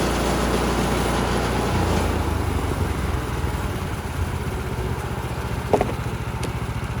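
Gas engine of a Woodland Mills band sawmill running during a cut of a cedar log; about two seconds in the engine note drops and settles into a lower, pulsing run. A short metallic clank near the end.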